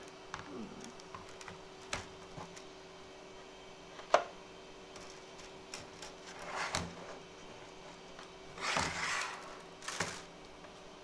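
Hands handling a plastic filament spool and the printer's top: small clicks and knocks, one sharp click about four seconds in, and rustling, scraping handling noise twice in the second half as the filament is fed in. A faint steady hum runs underneath.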